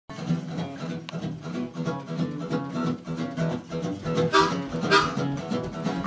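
Acoustic guitar strumming a steady blues rhythm, with a harmonica playing over it; the harmonica comes forward with bending notes in the last couple of seconds.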